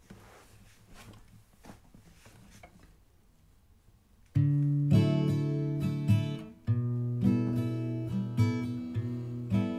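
Acoustic guitar: a few faint soft touches, then strummed chords start suddenly about four seconds in and carry on, with a short break in the middle.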